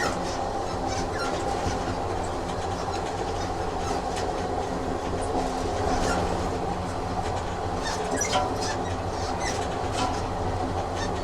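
Train running on rails: a steady rumble with a low hum, broken by scattered sharp clicks.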